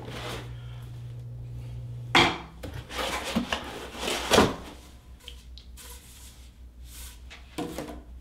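White packing foam being handled and worked out of a resin printer's upper section, rubbing and scraping in several short bursts. A low hum stops about two seconds in.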